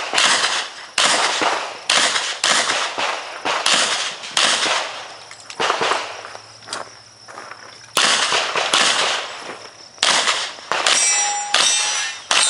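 A Smith & Wesson 610 revolver firing a string of single shots, about one a second, each sharp crack trailing off in echo, with a pause of about a second and a half in the middle.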